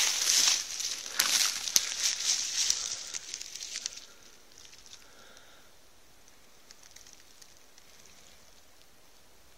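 Close rustling and crackling of leaves and twigs being handled for about the first four seconds, then faint forest background.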